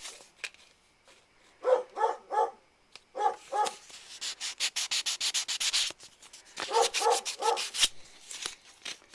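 Sandpaper rubbed by hand in quick back-and-forth strokes over the putty-filled plastic hull of a model kit, smoothing the filler. Short pitched squeaks come in quick sets of three, about two seconds in, at three and a half seconds and again near seven seconds, and are louder than the sanding.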